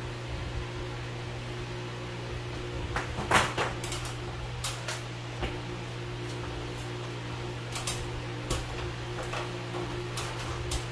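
A steady low mechanical hum with scattered light clicks and knocks, the loudest a short clatter about three seconds in.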